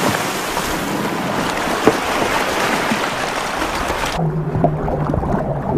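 A whale blowing at the surface: a long rushing exhale of spray mixed with choppy-sea water noise. It cuts off abruptly about four seconds in, and low sustained music tones take over.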